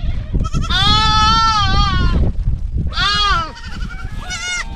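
Goats bleating in a pen: a long, wavering bleat lasting over a second, then shorter bleats about three seconds in and near the end.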